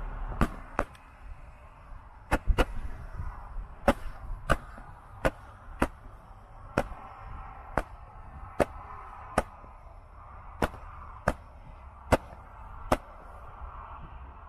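Two hand-held Roman candles ('Colored Pearls') firing their stars one after another: about sixteen sharp pops, the two tubes' shots interleaved at roughly one every half second to second, over the hiss of the burning candles, the shots ending a second or so before the end.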